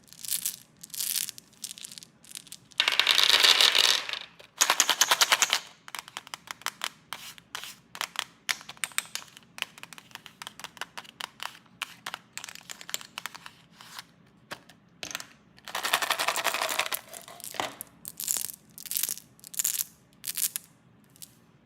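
Plastic snack wrappers crinkling and being torn open: scattered sharp crackles throughout, with two dense runs of rapid crackling, one about three seconds in and another near the sixteen-second mark.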